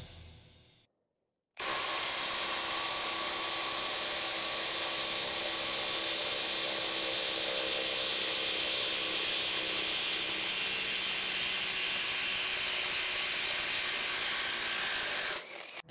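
Bosch IDH182 18 V brushless impact driver driving a half-inch by 8-inch screw into stacked lumber, its hammer-and-anvil mechanism impacting steadily under load. It starts about a second and a half in and stops just before the end.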